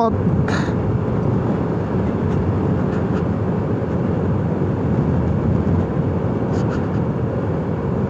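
Motorcycle riding along at a steady speed: a steady engine hum under constant wind and road noise on the microphone.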